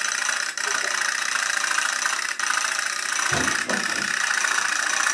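Candle-heated pop-pop toy boat engine running, its little boiler popping so rapidly that it merges into a steady rattling buzz as it drives the boat along.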